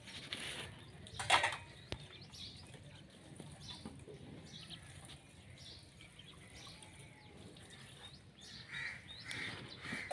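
Domestic chickens, hens and a rooster, clucking and calling in short bursts while they peck at grain. A brief louder sound comes about a second in, and a quick run of repeated clucks near the end.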